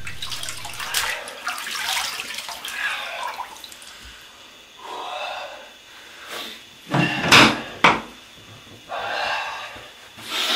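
Water splashing in a bathroom sink as hands scoop it up to the face. This is followed by several separate knocks and bumps, the loudest pair about two thirds of the way through.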